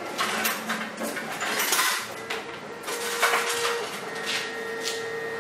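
Clatter and scraping of a plastic enclosure and small parts being handled in a stainless steel tray, with several sharp knocks, the loudest about three seconds in.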